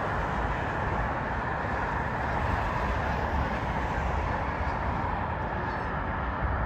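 Steady outdoor rumble and hiss of vehicle traffic going by, with no distinct sharp sounds.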